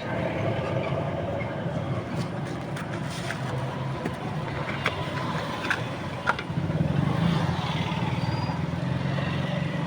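A motor vehicle running with a steady low rumble that grows louder about two-thirds of the way through, with a few sharp clicks in between.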